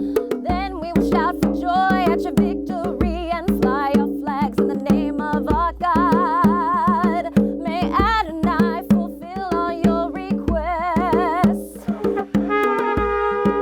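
Music: a wordless voice singing with a wide vibrato over held instrumental chords and a steady percussion beat. The voice drops out near the end, leaving the held chords.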